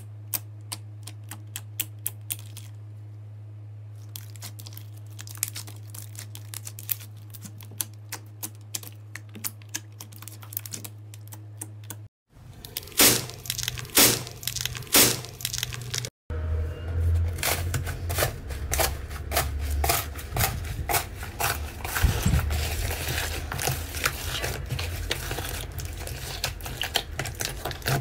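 Hands pressing and squeezing slime. It starts with sparse crisp clicks over a low steady hum. A few loud pops follow about halfway through, then dense continuous crackling in the second half.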